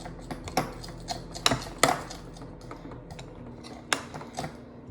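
A utensil clinking and knocking against a bowl at irregular intervals while slime ingredients are stirred, with a few louder knocks.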